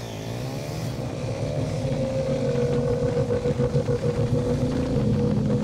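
Motorcycle engine pulling under acceleration: its pitch dips briefly, climbs over about two seconds, then holds a steady drone while it grows louder.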